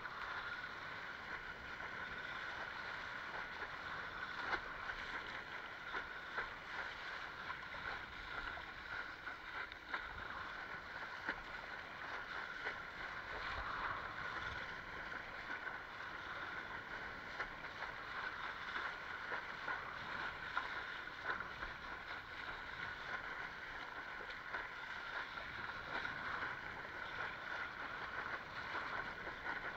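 Water rushing and splashing along the hull of a Fanatic Ultra Cat windsurfing longboard under sail: a steady wash broken by frequent small splashes.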